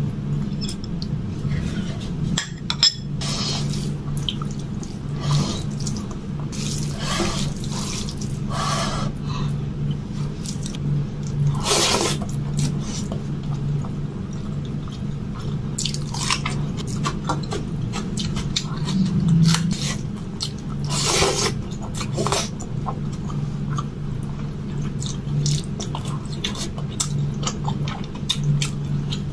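Wet squelching and squishing of a hand kneading and mixing rice with palak curry on a steel plate, in many short irregular strokes over a steady low hum.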